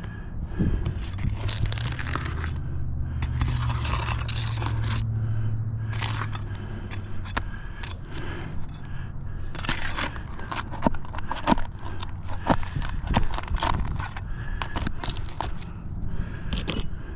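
Scraping, clicks and clattering of hand work on a roof, with a low steady hum in the first half.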